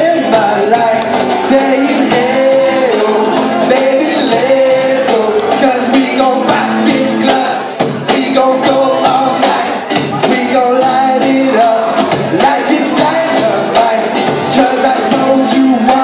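Live band playing: a man singing over acoustic guitar and cajón, with steady, quick hand-drum strikes throughout.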